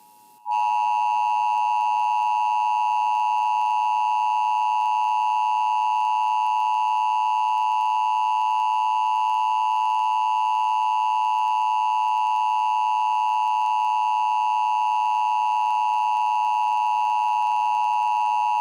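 Emergency Broadcast System attention signal: two steady tones of 853 Hz and 960 Hz sounded together without a break, starting about half a second in. Aired here as part of a routine EBS test.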